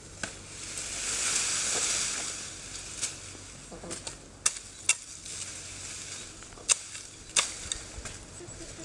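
Olive branch foliage rustling as the branch is lifted and handled, then a hooked billhook chopping shoots off the branch: several sharp strikes of blade on wood, spaced irregularly through the second half.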